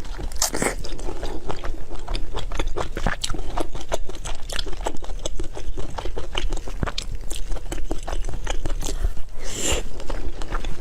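Close-miked chewing and biting of food: a dense run of small crunchy clicks, several a second, with a louder burst near the end.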